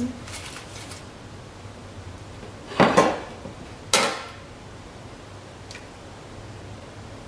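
A metal spoon clinking and scraping on a ceramic plate, with two sharp knocks about three and four seconds in. A faint crinkle of aluminium foil comes first, as a baked fig is taken out of its foil wrap.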